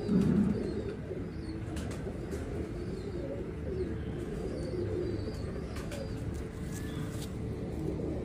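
Domestic pigeons cooing, a low, steady, overlapping murmur of coos, with a few faint high chirps in the middle.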